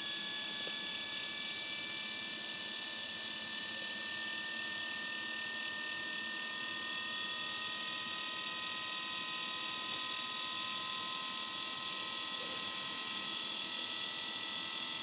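Mitsuba brushless in-wheel electric motor spinning up on the bench, giving a steady whine made of several high tones that rise slowly in pitch as it speeds up from about 2100 to 2400 rpm, with its stator fully aligned with the rotor.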